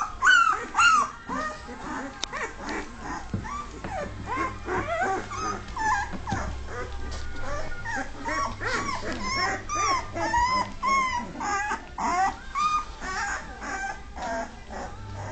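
A litter of two-and-a-half-week-old Dogue de Bordeaux puppies whimpering and squealing: many short, high, arching cries overlapping, several a second, the loudest two in the first second.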